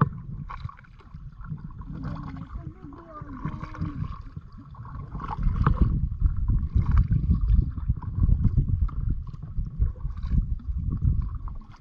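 Water splashing and gurgling around a kayak as it is paddled. About halfway through, a loud, uneven low rumble comes in.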